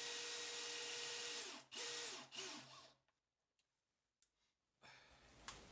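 Small electric power driver running at full speed for almost two seconds, then given two short bursts, each winding down as it stops. It is driving screws into the link ends. A few faint clicks follow near the end.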